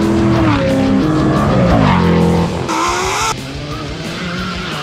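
Race car engine revving hard on track, its pitch gliding down as it passes, with a short sharp burst of noise about three seconds in; then a cut to a quieter, lighter engine.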